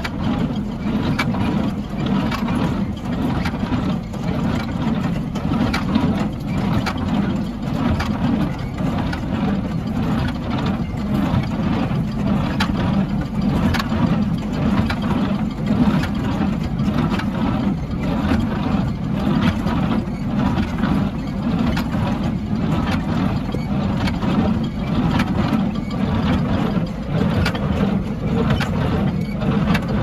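International Harvester 440 small square hay baler running under power, its plunger and drive clacking in a regular rhythm over the steady drone of the tractor engine driving it.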